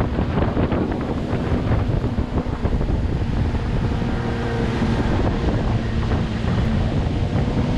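Motorboat running at speed: a steady engine hum under the rush of water along the hull, with heavy wind buffeting the microphone.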